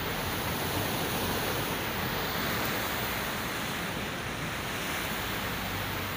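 Steady rushing noise of wind and a fast rocky mountain river, heard from the open roof of a moving vehicle.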